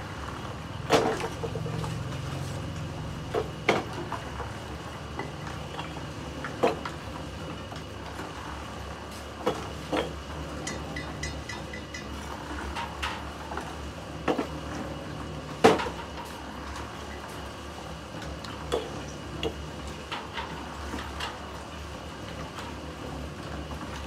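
Construction-site work: a dozen or so irregular metal clanks and scrapes, like a shovel striking and scraping, over a steady low machine hum. The loudest clanks come about a second in and about two-thirds of the way through.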